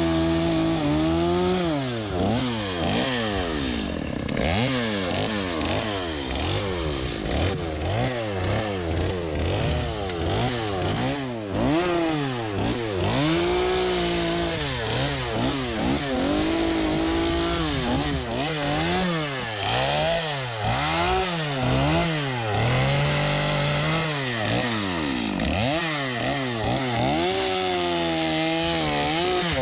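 Chainsaw running while cutting branches and debris. Its engine pitch is steady for about the first second, then drops and climbs back again and again as the saw is worked through the wood.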